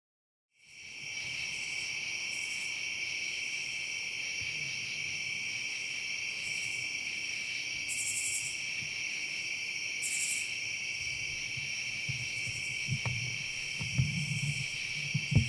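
A steady chorus of night insects trilling at two high pitches, with two louder, higher buzzes about eight and ten seconds in. The sound fades in after a brief silence at the start. A few low knocks and rustles come near the end.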